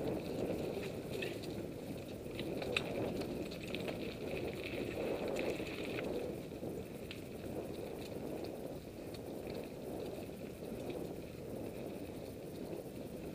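Mountain bike rolling along a dirt singletrack: a steady rumble of tyres over dirt and leaf litter, with scattered clicks and rattles from the bike over bumps.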